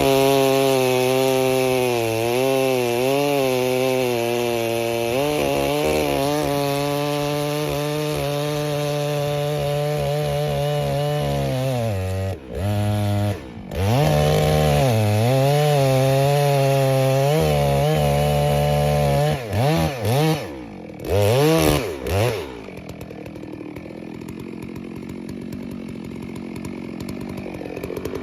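Neotec clone of a Stihl 660 two-stroke chainsaw, run stock out of the box. It holds at high revs that waver, drops and climbs again about twelve seconds in, and gives a few short throttle blips. It settles to a low idle for the last several seconds.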